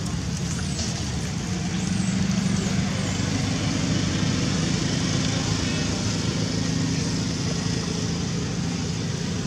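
Steady low rumble of a motor vehicle, growing slightly louder about two seconds in, with a few faint high chirps near the start.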